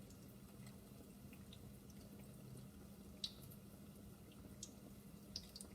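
Quiet frying of tuna and potato kebabs in oil over low heat: a few faint scattered pops and ticks over a low steady hum.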